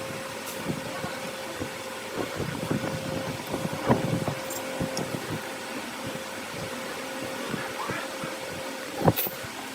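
Wood lathe running with a steady hum, with scattered light knocks and taps and one sharper knock near the end.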